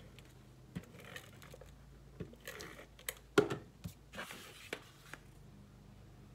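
Cardstock being handled and pressed into place: soft paper rustling and sliding with a scattering of light taps and clicks, the sharpest about three and a half seconds in.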